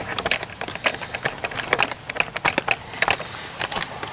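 A spoon clinking and scraping in a metal canteen cup of rehydrated lasagna: rapid, irregular clicks and taps.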